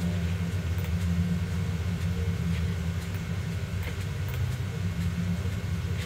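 Steady low rumble of background noise, with a few faint mouse clicks scattered through it.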